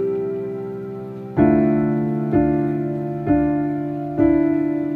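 Background piano music: slow notes or chords struck about once a second from about a second and a half in, each one ringing and fading.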